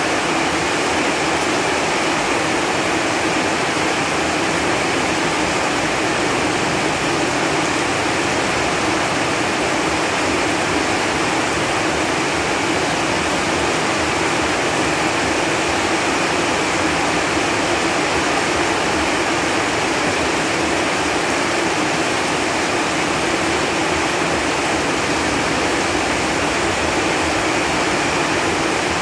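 Steady rain falling on leaves, an even hiss of many drops that holds constant with no breaks.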